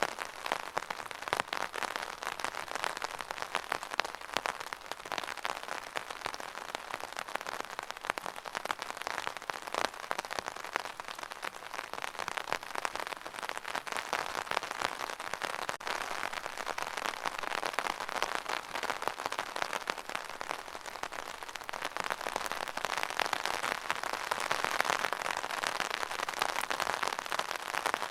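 Steady rain falling, a dense pattering of many drops on a hard surface, with no thunder.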